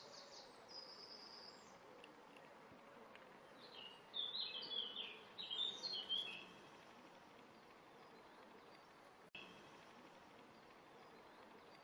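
Small songbirds chirping, short runs of high notes that are loudest from about four to six seconds in, over a faint steady background of outdoor noise.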